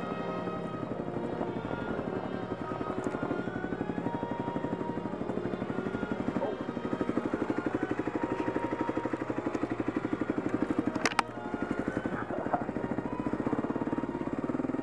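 Kawasaki KLX250S single-cylinder four-stroke engine running steadily at low revs with a fast, even firing pulse while the bike creeps down sheet ice. A single sharp knock comes about eleven seconds in.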